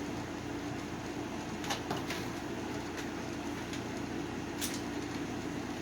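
A few light clicks of a screwdriver and small metal parts as a screw is backed out of an electronics chassis, over a steady low hum.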